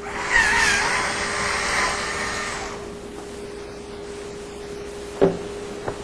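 A dishwasher side plate being worked off, scraping with a wavering squeal for about two and a half seconds, then two sharp knocks near the end.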